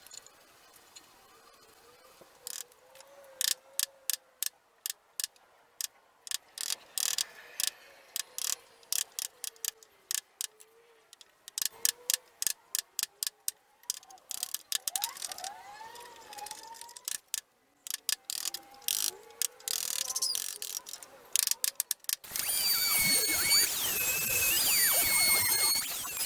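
Sharp clicks and taps on wood in irregular quick runs, typical of hand-tool carving work on timber. Near the end a louder, denser sound with wavering high tones comes in.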